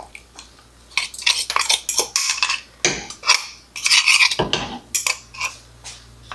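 Spatula scraping thick pinole paste out of a glazed ceramic bowl into a clay pot, with a run of irregular scrapes and light knocks of the bowl and spatula.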